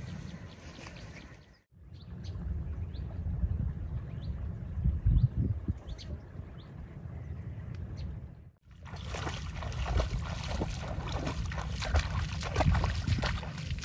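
Bare feet splashing and sloshing through shallow muddy water as someone wades quickly, in the second half. Before that, a short high chirp repeats about twice a second over a low rumble.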